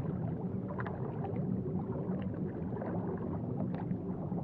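Underwater ambience: a steady low water rumble with small bubbles popping and gurgling throughout.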